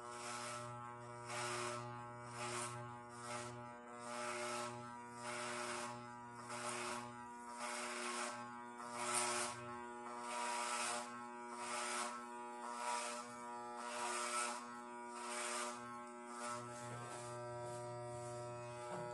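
Electric hair clippers running with a steady buzzing hum. The buzz turns rougher about once a second as the blades are stroked through hair, and the strokes stop near the end while the motor keeps running.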